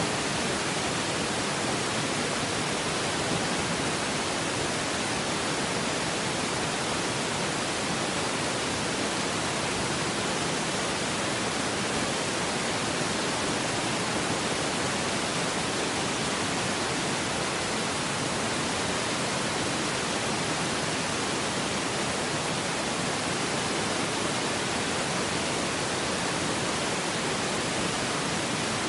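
A steady, unchanging hiss like static, spread evenly from low to high pitches, with no other sound.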